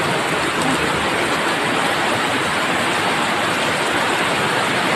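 Heavy typhoon rain pouring down in a steady, loud rush.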